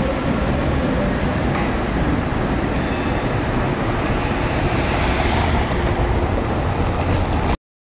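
ČKD Tatra T3 tram rolling along the track and away through an archway, as a steady dense rumble, with a brief high wheel squeal about three seconds in. A car comes up over cobblestones in the second half, and the sound cuts off abruptly near the end.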